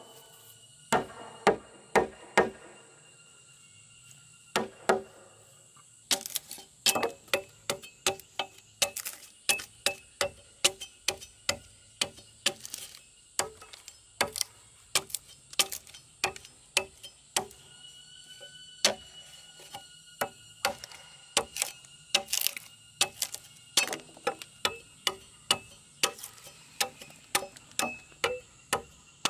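Repeated sharp blows of a bladed hand tool cutting into a log to dress its face flat: a few scattered strokes at first, then a steady rhythm of about two a second from about six seconds in.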